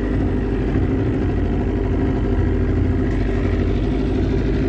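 A 20 hp outboard motor running steadily at an even speed, now running well after its carburettor was cleaned of water.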